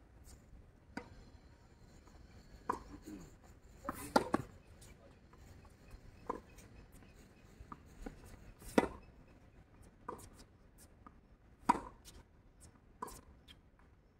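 Tennis rally on a hard court: sharp pops of the ball off racket strings alternating with the ball bouncing on the court, a knock about every second and a half.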